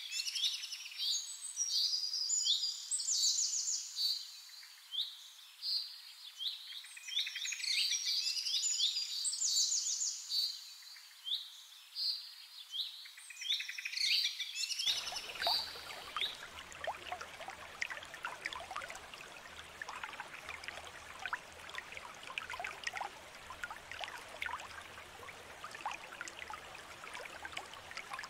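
Several small birds chirping and singing in quick, overlapping calls. About halfway through the birdsong cuts off abruptly and a steady hiss with faint ticks and a low hum takes over.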